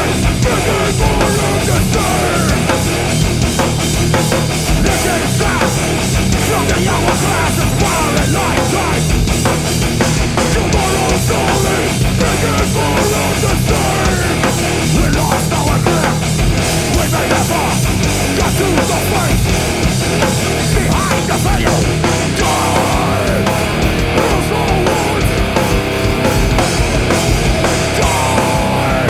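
Loud, heavy distorted rock played live by a band of electric guitar, bass guitar and drums, running steadily without a break.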